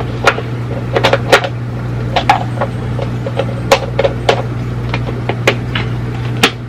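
Irregular sharp clicks and crackles of a plastic toy capsule and plastic wrapping being handled and squeezed, over a steady low hum.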